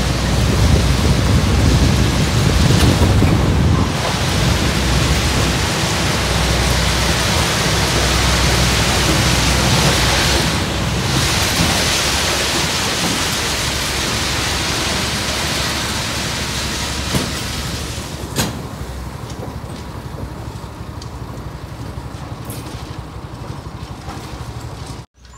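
Track ballast regulator running along the line as it grades and spreads the ballast: a low engine rumble under a dense rushing noise, which grows fainter over the last several seconds as the machine moves away. A single sharp click sounds about 18 seconds in.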